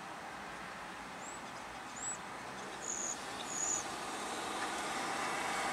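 Steady outdoor background noise, growing slightly louder toward the end, with four short, faint, high-pitched chirps in the first half.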